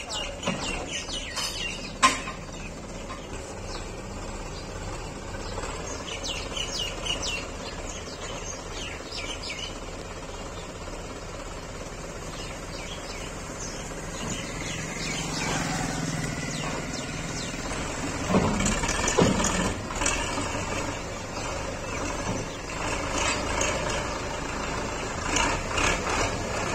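Diesel engine of a Belarus tractor with a front loader running as the tractor moves, growing louder from about fifteen seconds in, with a couple of sharp knocks around eighteen seconds. Birds chirp about six to nine seconds in.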